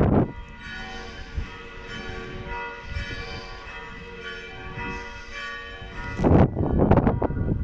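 Felsenkirche church bells ringing, a dense stack of steady overlapping tones. Loud rumbling noise, like wind buffeting the microphone, swamps the bells about six seconds in.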